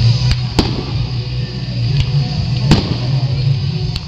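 Fireworks shells bursting in the sky: a series of about five sharp bangs, the loudest about half a second in and again nearly three seconds in, over a steady low background rumble.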